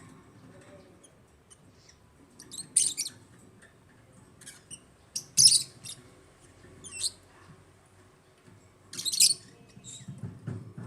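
African lovebirds chirping: short, shrill calls in scattered bursts, the loudest about three, five and a half and nine seconds in.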